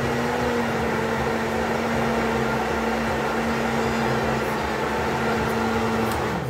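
Countertop electric blender running at a steady speed, blending fruit juice with a constant motor hum. About six seconds in it is switched off and the motor's pitch falls as it spins down.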